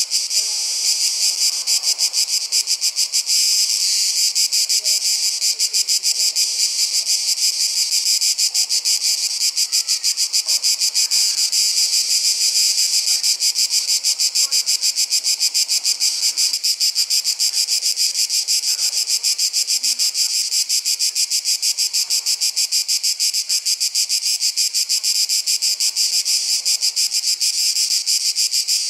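A loud chorus of summer insects, a dense high-pitched buzzing that pulses rapidly and evenly and holds steady throughout.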